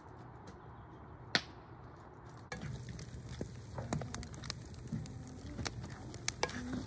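Food frying in a pan, sizzling, with short clicks and scrapes of a cooking utensil. The sizzle comes in suddenly and louder about two and a half seconds in.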